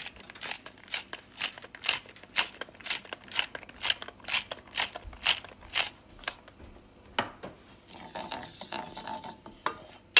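Wooden spoon scraping and stirring dry toasted flour and spices around a stainless steel pan, in even strokes about two a second. The strokes stop about two-thirds of the way through, followed by a single knock and quieter scraping.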